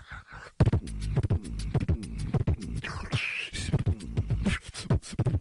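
Human beatboxing heard over a voice-chat connection. After a brief pause, a fast, busy pattern of kick and snare clicks starts about half a second in, with a vocal scratch sound near the middle.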